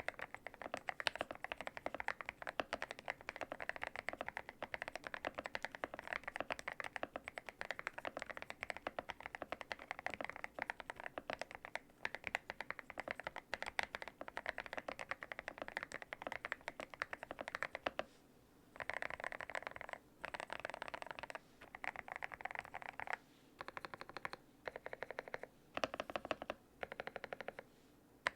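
Fast typing on a Yunzii B68 mechanical keyboard with lubed Gateron Oil King linear switches, in a tape-modded, foam-filled case. The keystrokes run as a dense stream, then from about two-thirds of the way in they come in short bursts of very rapid presses with brief pauses between them.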